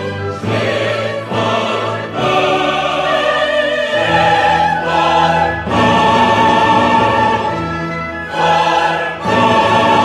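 Background music: slow choral and orchestral music with sustained sung chords that change every second or two.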